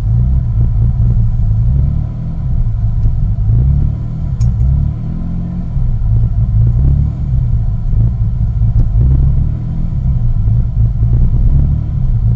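2001 Mitsubishi Eclipse GT's 3.0-litre V6 idling roughly on a cold start, its low running note rising and falling unevenly every second or two. It is a cold-start rough idle that the owner says clears once the engine warms up; he doesn't know the cause.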